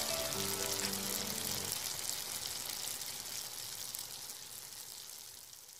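A short intro jingle with a few musical notes for the first couple of seconds, over a sizzling, frying-pan sound effect. The sizzle carries on alone after the music stops and slowly fades out.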